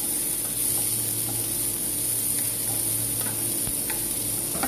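Chopped onion and garlic sizzling steadily in hot chili garlic oil in a frying pan while being stirred with a wooden spatula, with a few short scrapes of the spatula against the pan.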